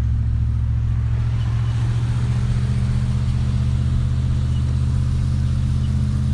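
Steady low drone of a car driving, heard from inside the cabin: engine and road noise.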